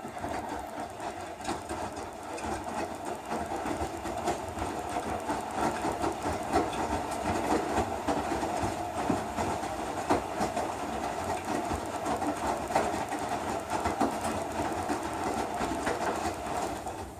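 Electrolux Eco Turbo TRW12 washing machine running through its Heavy cycle, a steady mechanical churning laced with fast rattling clicks. It starts up abruptly and stops near the end.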